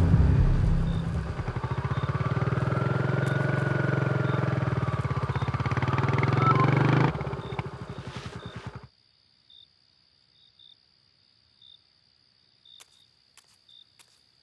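Motorcycle engine running with a steady beat of firing pulses, cutting down sharply about seven seconds in and dying away within two more seconds. After that only faint scattered ticks remain.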